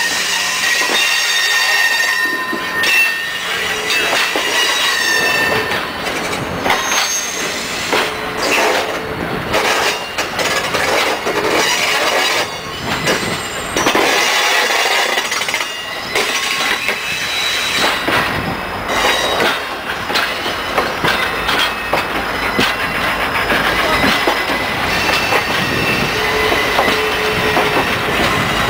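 Railroad passenger coaches rolling slowly past, their steel wheels squealing in high, shifting tones against the rails, with occasional clacks from the wheels.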